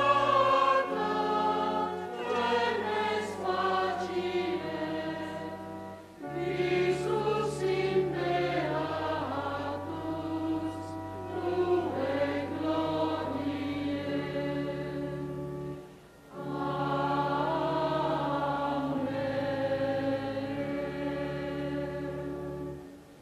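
Choir singing a hymn over long held low notes, with two brief breaks between phrases, about six and sixteen seconds in.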